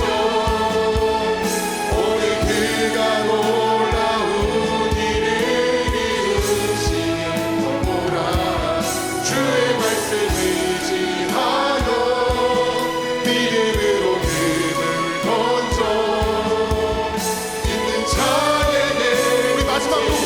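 Congregation and worship team singing a gospel praise song together, backed by a band with a steady drum beat.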